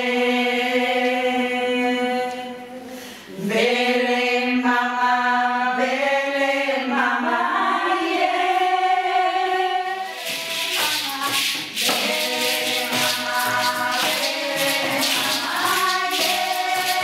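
A group of women's voices sings long held notes together. About ten seconds in, quickly shaken rattle percussion joins in a busy rhythm while the singing goes on.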